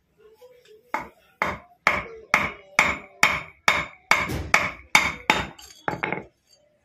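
About a dozen hammer blows on metal, roughly two a second, starting about a second in and stopping near the end, each with a short metallic ring: a 6905 ball bearing being driven onto its seat.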